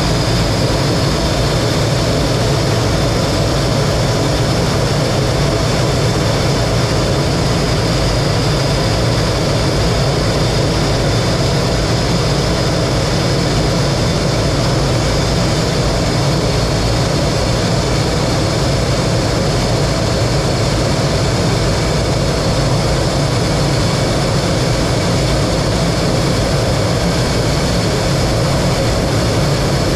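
T-33 jet trainer's turbojet engine running steadily: a constant rushing roar with a steady high whine on top, unchanging throughout.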